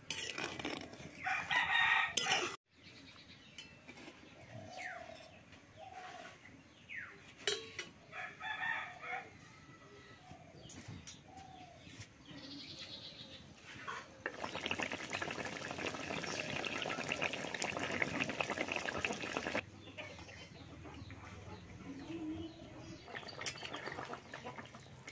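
Village chickens clucking, with a rooster crowing loudly about a second in, and a steady hiss lasting about five seconds in the middle.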